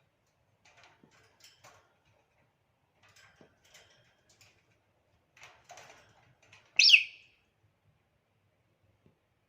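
African grey parrot giving one short, loud whistle-like call about seven seconds in, after a few seconds of faint scattered clicks and rustles.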